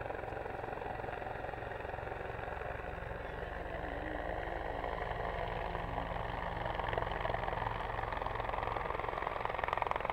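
Bell 412 twin-turbine military helicopter flying past at low level: a steady rotor and turbine sound that grows a little louder near the end.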